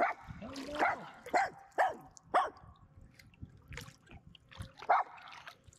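A dog on a dock barking at a passing kayaker: a run of sharp barks about half a second apart, then one more bark near the end. These are territorial alert barks at a stranger.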